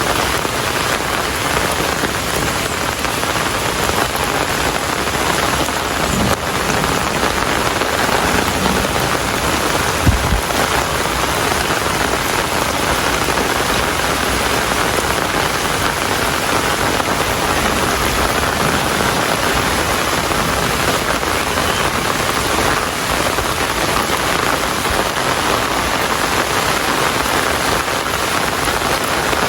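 Steady rain falling, an even hiss. A single brief low thump about a third of the way in.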